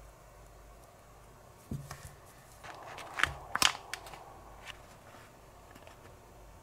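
Light clicks and taps of plastic and wooden utensils handled on a tabletop, with a short burst of crackling and sharp clicks about three to four seconds in, as a thin plastic candy mold tray is handled.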